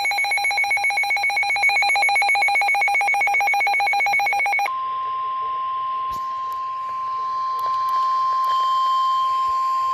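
A weather radio receiver's electronic alert alarm beeps in a rapid trill for almost five seconds. It then gives way to the steady single-pitch 1050 Hz NOAA Weather Radio warning alarm tone, which signals that a warning broadcast, here a severe thunderstorm warning, is about to follow.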